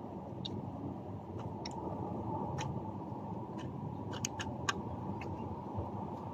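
Scattered small clicks and taps as wires and a screwdriver are worked into the terminals of a plastic relay socket, a few coming in quick succession about four seconds in, over a steady low background rumble.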